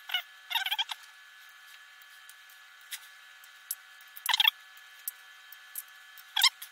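Hobby side cutters snipping small model parts from a parts fret: three short bursts of scratchy clicking, about a second in, past four seconds and near the end, over a faint steady hum.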